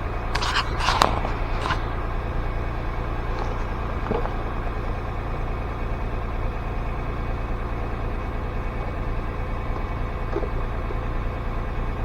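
Car engine idling steadily, a low hum heard from inside the car. A few short scrapes and clicks come in the first two seconds.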